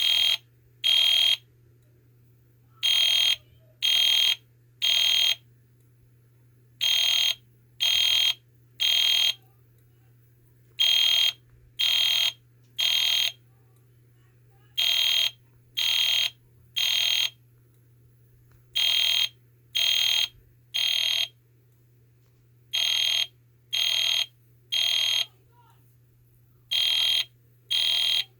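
EST Genesis fire alarm sounding a harsh electronic horn tone in the temporal-three evacuation pattern: three half-second blasts a second apart, then a pause, repeating about every four seconds.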